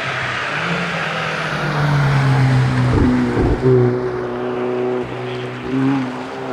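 Hyundai i30N N3 rally car's turbocharged four-cylinder engine driven hard on an asphalt stage, with a short cluster of bangs about three seconds in, after which the engine note drops; the note dips again near the end.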